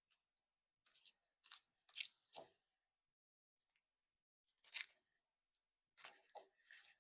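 Faint, scattered crackles and tearing sounds of a Fruit by the Foot snack's packaging being opened and unwrapped, in short separate bursts.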